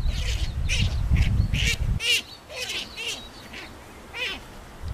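Hare screaming in distress as a marten bites it: a rapid run of short, harsh, high-pitched squeals, about two a second, thinning out toward the end. A low rumble of wind on the microphone runs under the first two seconds.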